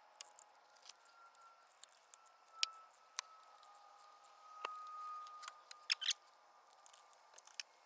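A wrench clicking in scattered, irregular clicks as the air cleaner's breather and backing-plate bolts are torqued down.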